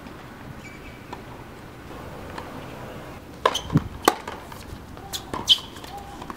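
Tennis ball struck by racquets and bouncing on a hard court during a rally: a run of sharp pops begins about three and a half seconds in, over low, steady outdoor background noise.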